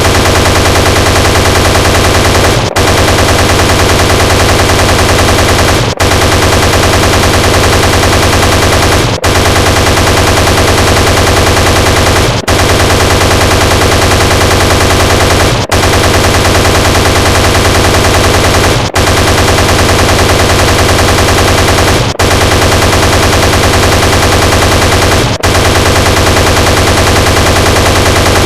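Sound effect of an Apache helicopter's 30 mm chain gun firing nonstop, a dense rapid rattle that starts abruptly. It runs as a loop, with a brief dip and restart about every three seconds.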